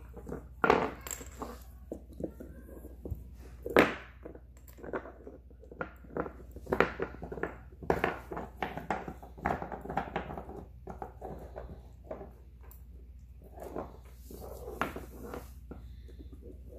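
A puppy gnawing a hard nylon Nylabone chew stick on a hardwood floor: irregular clicks, scrapes and knocks of teeth on the bone and of the bone against the floor, with a few louder knocks among them.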